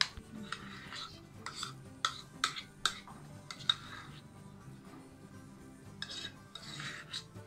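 Metal spoon scraping a thick dip out of a porcelain bowl and clinking against the bowl and serving plate: several sharp clinks and short scrapes, over quiet background music.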